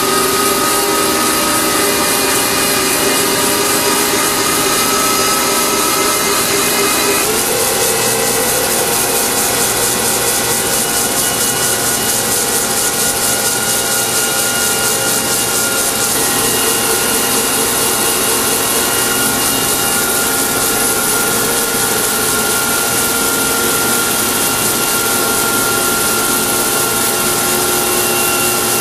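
Horizontal boring mill's facing head cutting the face of a large metal workpiece. It makes a steady, loud scraping machining noise with a few steady whining tones from the spindle and drive. The pitch of the tones shifts about seven seconds in.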